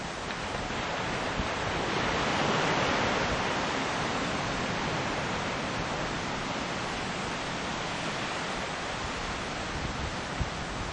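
Ocean surf breaking and washing in as a steady rush of churning water, swelling louder about two seconds in and then easing to an even wash.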